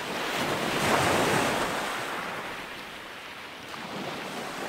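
Ocean waves washing, swelling about a second in and then slowly easing off.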